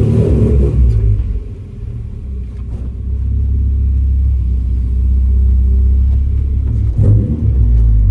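1990 Mazda Miata's stock 1.6-litre four-cylinder engine running at low, steady revs, heard from inside the cabin. It drops quieter a little after a second in, then comes back up and holds steady.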